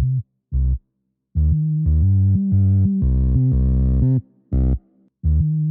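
Background music: a deep synth bass line of held notes that change pitch, cutting to full silence twice before resuming.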